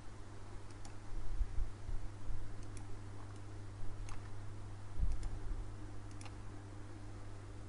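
Computer mouse clicking, a few single sharp clicks spaced a second or so apart, over a steady low hum. Dull low thumps come about a second in and again around the middle.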